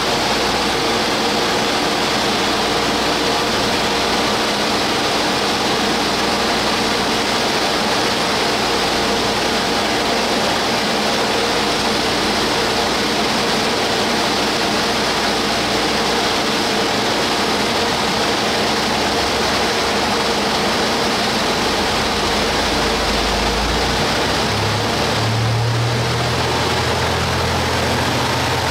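Stationary 413/455 series electric train's onboard equipment running: a steady whirring rush with a faint hum under it. A deeper hum comes in about 25 seconds in.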